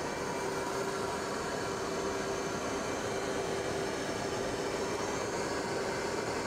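Steady in-flight aircraft noise heard from aboard an aircraft: a constant rushing drone with a faint steady hum, unchanging throughout.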